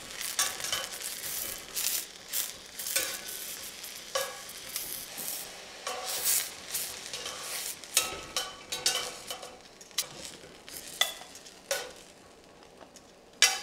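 Portobello mushroom caps sizzling in a cast-iron skillet, with metal tongs clicking and scraping against the pan as the caps are turned and lifted out. A sharp knock near the end.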